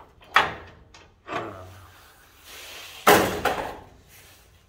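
Metal clanks from a socket wrench being fitted to a rusted, seized bumper carriage bolt, with the loudest, sharpest clank about three seconds in. The socket is too small for the bolt head.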